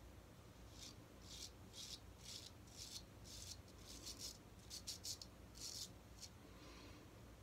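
Straight razor scraping lathered stubble on the neck against the grain: about a dozen short, faint rasps, one per stroke, coming in loose runs.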